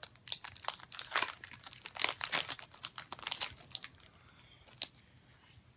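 Foil wrapper of a Pokémon booster pack being torn open and crinkled by hand: a quick run of sharp crackles for about three and a half seconds, then quieter rustling with a single click near the end.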